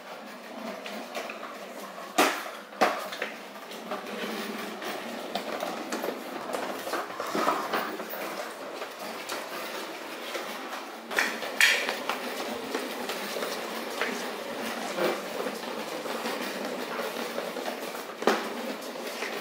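Small wheels of a Razor kick scooter and a toddler's ride-on toy rolling over hard tile and wood floors: a steady rolling rumble with a few sharp clacks and knocks.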